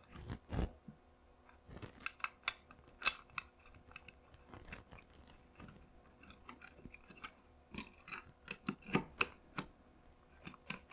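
Small metal pistol parts clicking and scraping in the hands as a spring is worked into an airsoft gas pistol's slide: many short, irregular clicks, with a couple of duller knocks about half a second in.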